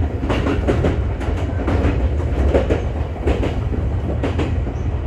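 Electric train running, heard from inside its front cab: a steady low rumble with irregular groups of wheel clicks as the wheels pass over rail joints and points through a station yard.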